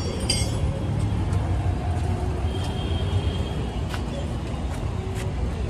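Steady low rumble of road traffic, with a few faint clicks.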